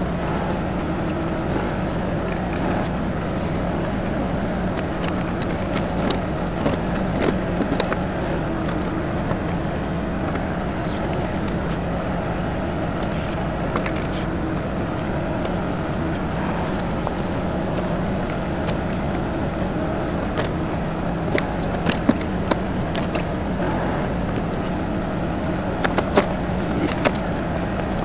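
TYM 2515H compact tractor's three-cylinder diesel engine running steadily under backhoe work, with a few sharp knocks from the digging coming in short clusters several seconds in, about two-thirds of the way through and near the end.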